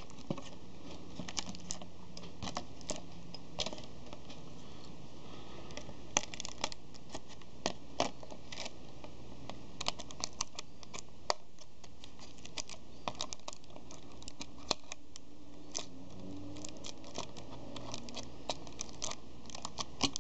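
Clear plastic blister packaging crackling and clicking as small accessories are pried out of it by hand: an irregular string of sharp clicks and crinkles.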